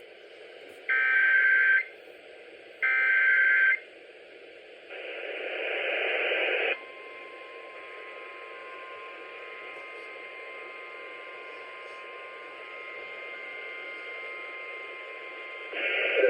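NOAA Weather Radio emergency alert signal received on a weather radio. The SAME digital header comes as short screeching data bursts, two of them in the first four seconds, followed by about two seconds of loud static. Then the steady single-pitch 1050 Hz weather radio alert tone sounds faintly under hiss for about nine seconds, announcing a severe thunderstorm warning.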